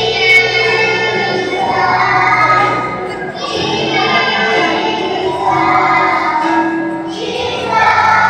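A group of three- and four-year-old children singing a song together, in sung lines of about four seconds with short breaks between them.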